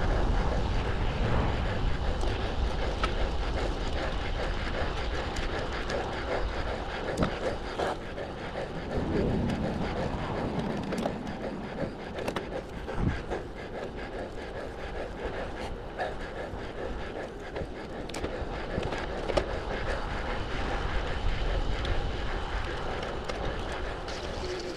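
Wind rushing over the microphone and tyres rolling on asphalt as a road bike is ridden at speed, with scattered light clicks and rattles from the bike.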